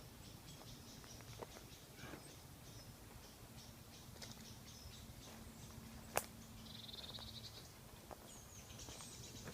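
Small woodland birds chirping faintly, with a short fast trill about seven seconds in. Faint crackles and a single sharp click about six seconds in, the loudest sound, fit footsteps on the forest floor.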